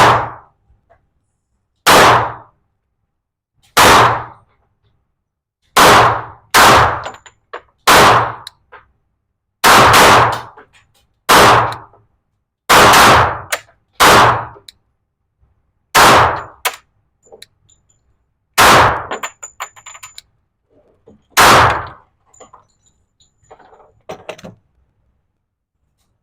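A Glock 21SF .45 ACP pistol fired about thirteen times, the shots a second or two apart and further apart near the end. Each shot is loud and sharp, with a short echo.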